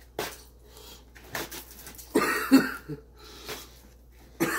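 A man coughing and clearing his throat in several short, harsh fits, the loudest cluster about two seconds in, from the burn of a super-hot chili chocolate bar. Paper towels are being torn off a roll at the same time.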